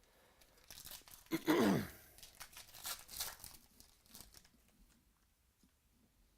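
Foil trading-card pack wrapper being torn open and crinkled, loudest about a second and a half in, where a brief sound falls in pitch, then dying away after about four seconds.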